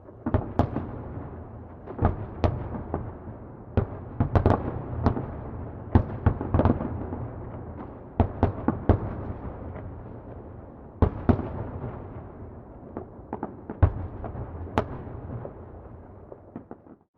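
Fireworks exploding at a distance: irregular clusters of sharp bangs and crackles, each trailing off in an echoing rumble that never quite dies away between them.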